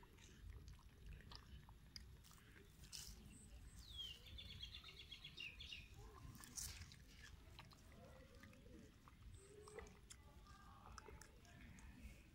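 Faint eating sounds of a long-tailed macaque chewing ripe mango: soft wet smacks and small clicks. A brief high chirping call about four seconds in.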